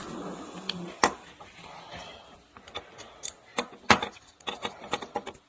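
Metal shower hinge parts being handled and fitted back together: a sharp click about a second in, then a run of light ticks and two sharper knocks a little past halfway.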